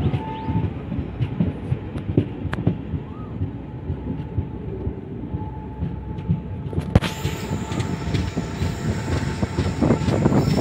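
Indian Railways express passenger train heard from on board, running with a steady rumble and scattered clicks from the wheels over the track, and a faint squealing tone. About seven seconds in there is a sharp knock, and the running noise turns brighter and a little louder.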